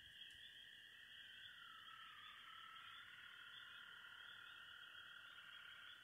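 Faint night chorus of frogs, a steady high-pitched calling in several overlapping bands that never lets up.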